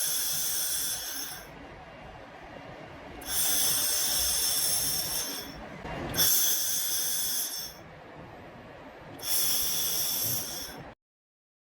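Handheld fiber laser welder working on stainless steel tube: a loud hiss with a steady high whine comes in four bursts of about two seconds each, with a quieter hiss between them. The sound cuts off suddenly near the end.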